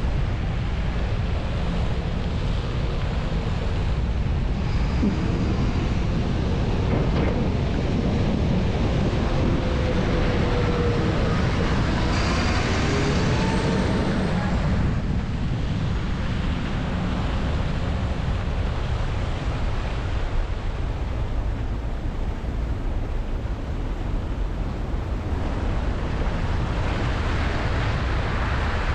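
Steady road and wind noise of a car driving through city traffic on wet, slushy roads, picked up by a camera mounted outside the car. Rising and falling engine tones of nearby vehicles come through between about five and fourteen seconds in, and a louder hiss of tyre spray swells briefly around twelve to fifteen seconds in.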